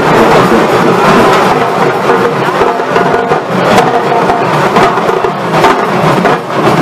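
Loud drumming and percussion with repeated sharp strikes, over the steady din of a dense crowd.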